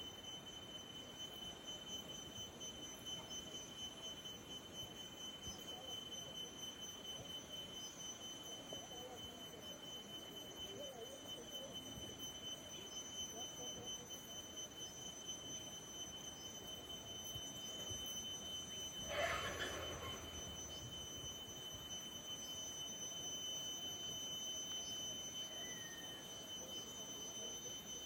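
Quiet village ambience: a steady high-pitched whine is held throughout over a faint low murmur. One brief louder sound comes about two-thirds of the way through, and there is a faint short chirp near the end.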